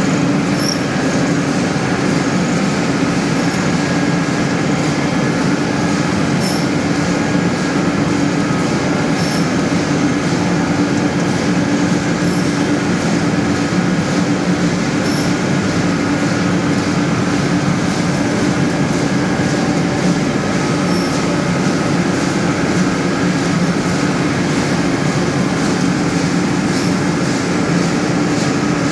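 Sawdust pellet mill running steadily under load, a loud constant machine drone with a steady hum and a few faint light ticks about every three seconds.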